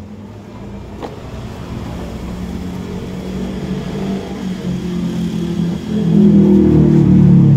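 A motor vehicle engine running, growing steadily louder and loudest near the end. A single sharp click about a second in.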